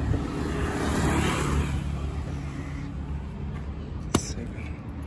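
Road traffic: a car passing by, swelling and fading about a second in over a steady low rumble, with one sharp click a little after four seconds.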